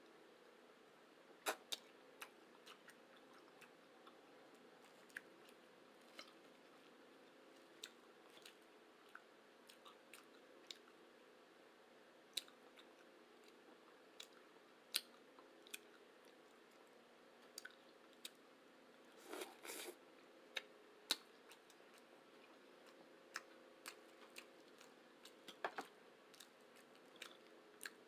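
A person chewing food close to the microphone: scattered sharp clicks and smacks, with a denser burst of chewing noise about 19 seconds in and another near the end, over a faint steady hum.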